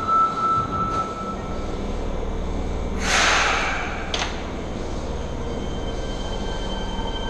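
Subway train standing at an underground platform, about to pull out: a steady high tone fades out in the first second or so, then a short burst of hissing air about three seconds in, a click, and a steady low rumble from the train.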